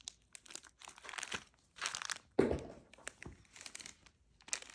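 Plastic snack wrappers crinkling and rustling as they are handled, in irregular bursts, with a louder rustle about two and a half seconds in.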